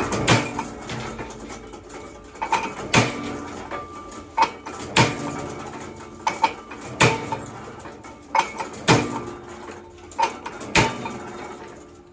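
Sharp metal clanks that ring briefly, one every second or two, with lighter clinks between them, typical of metal work in a workshop.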